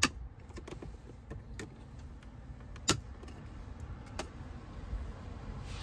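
Sharp plastic clicks from the BMW iDrive controller knob being prised off with a screwdriver, its retaining clips clicking as they give. A handful of clicks, the loudest at the very start, about three seconds in and about four seconds in, with quieter ones between.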